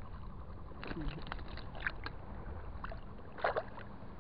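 Shallow sea water sloshing and lapping around a wading angler, with a faint steady hum and a few short sharp sounds about one, two and three and a half seconds in.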